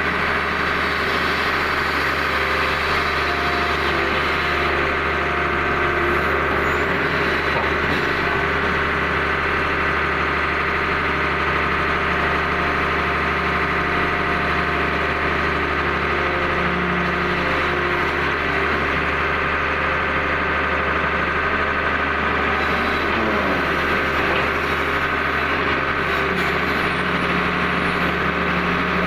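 Hydraulic excavator's diesel engine running steadily, heard from inside the cab, its tones shifting slightly as the boom and bucket dig and dump soil.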